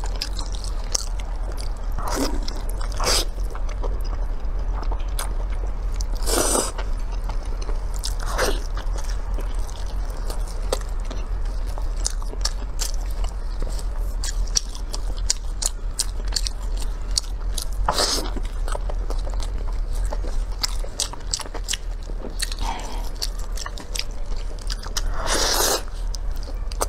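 Close-miked eating sounds: wet chewing, biting and lip smacking on braised meat on the bone, with several louder moments scattered through, over a steady low hum.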